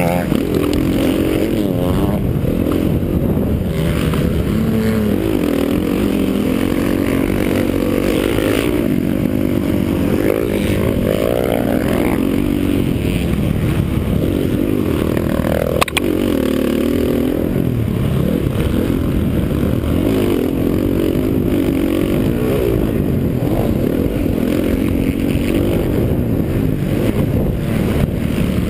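Motocross dirt bike engine revving up and down as it is ridden hard over the track, heard close from a helmet-mounted camera. There is a single sharp knock about halfway through.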